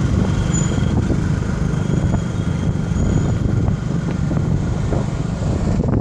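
Steady low rumble of a moving road vehicle, engine and road noise heard from on board.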